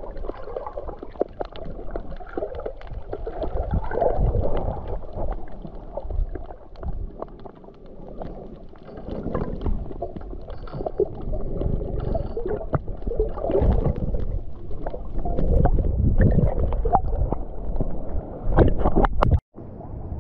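Underwater sound picked up by a GoPro while snorkeling: muffled, surging water movement around the camera, with scattered crackles and clicks. It cuts off abruptly near the end.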